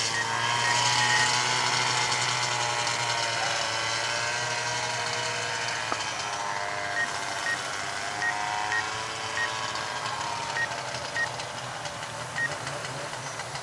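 Quadcopter drone propellers whining, the pitch rising and falling as it manoeuvres. About halfway through, a run of short high beeps starts and repeats at uneven intervals.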